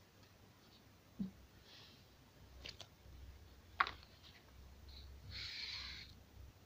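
Whiteboard marker writing on a slick homemade whiteboard, faint and scratchy, with two sharp clicks a little over a second apart. About five seconds in comes a brief rubbing as the writing is wiped off the board.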